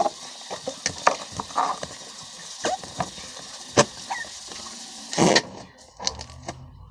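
Fluffy slime being handled and pressed into a plastic container: irregular squelches and sharp clicks, with a longer, louder noisy burst about five seconds in.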